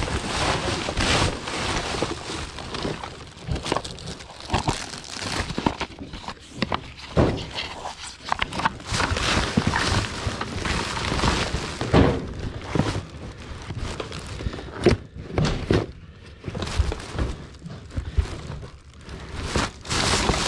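Belongings being rummaged through and moved about by hand: irregular knocks, thuds and clatter of objects being picked up and set down, with a few sharper knocks about twelve and fifteen seconds in.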